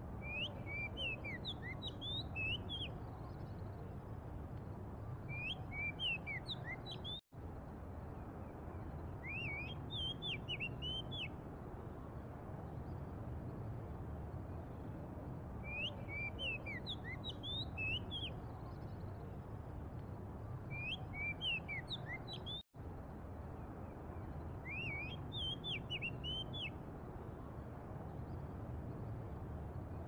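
Oriental magpie-robin singing: short phrases of clear, sweeping whistled notes, each lasting a second or two and repeated about every four to five seconds, over a steady low background rumble.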